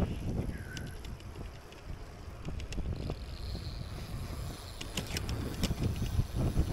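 Wind buffeting the microphone on a moving bicycle, over a steady rumble of tyres on the road, with scattered small clicks and rattles from the bike.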